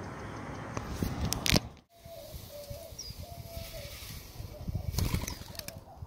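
Wings of a bird flapping as it flies off, loudest in a quick flurry about five seconds in, with a dove cooing over and over in the background.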